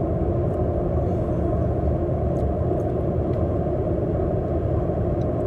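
Steady road and engine noise inside a moving car's cabin: an even low rumble that holds level throughout.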